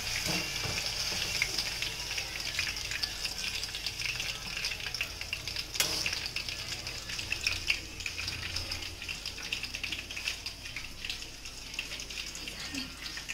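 Potato fries sizzling and crackling in hot oil in a kadai while a wire-mesh skimmer lifts them out, with one sharp click about six seconds in. The sizzling eases a little toward the end.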